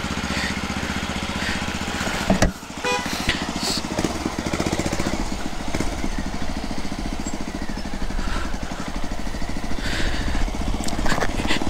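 Benelli motorcycle engine running while riding, with a brief sharp knock about two and a half seconds in.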